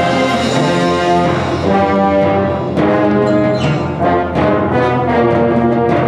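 High school symphonic band playing live, with the brass section prominent: trombones, tubas and euphoniums sounding full chords over saxophones and woodwinds. The chords are held and change every second or so.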